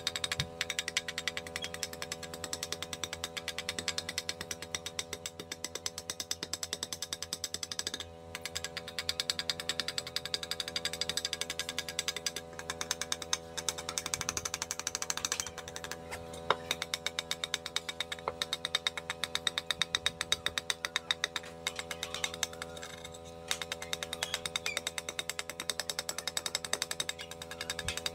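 A large chopping knife striking a wooden bowl's wall over and over in quick short chops, shaving its outside, with a few brief pauses. A steady low hum runs underneath.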